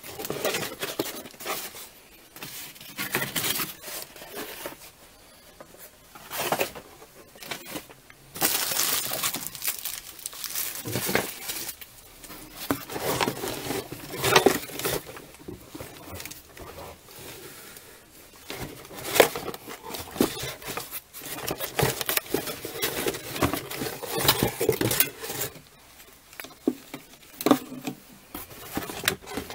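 Cardboard shipping box and its packing being handled and opened: irregular rustling, scraping and crinkling with scattered sharp knocks and taps.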